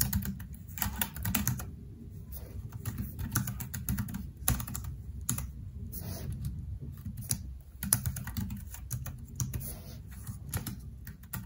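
Fast typing on a slim, low-profile keyboard, keys pressed with long fingernails: quick runs of light clicks broken by short pauses.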